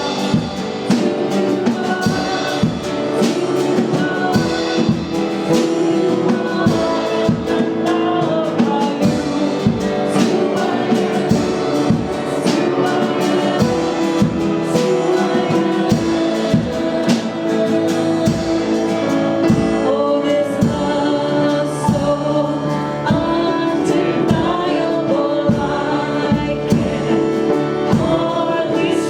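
Worship song in a church service: voices singing together over a band, with a drum kit keeping a steady beat.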